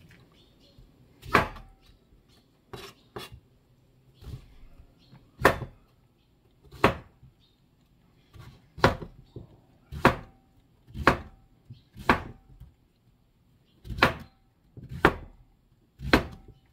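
Chef's knife chopping firm kabocha squash into chunks and striking the cutting board: a dozen or so sharp chops, roughly one a second and unevenly spaced.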